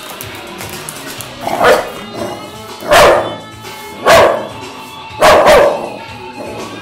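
A dog barking four times, roughly a second apart, over guitar music.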